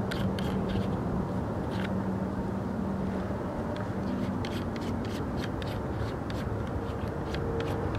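Light clicks and rubbing from hands handling a scoped bolt-action rifle, over a steady low hum.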